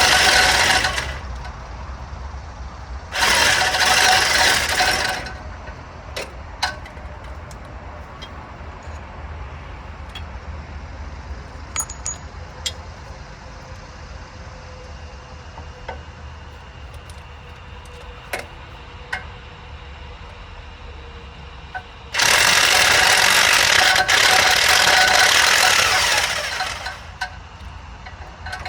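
Power impact tool hammering in three bursts: a short one ending about a second in, another of about two seconds, and a longer one of about four seconds near the end. Between them come scattered clinks of metal tools and parts, over a steady low hum.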